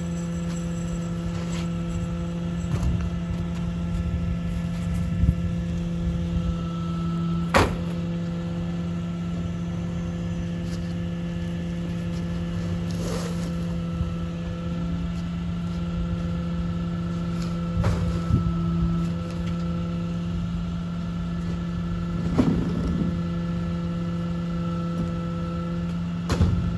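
Rear-loading garbage truck idling with a steady low hum, broken by a few sharp knocks and thuds as cardboard boxes and furniture are handled and dropped into a cart, the loudest about seven seconds in.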